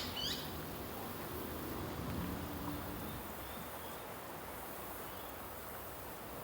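Quiet outdoor background with a quick run of short, high, falling bird chirps right at the start and a couple of faint bird notes a few seconds in.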